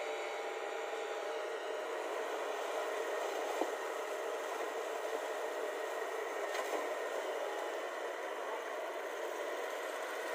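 Diesel engine of a JCB tracked excavator running steadily as the machine works, with a couple of light knocks.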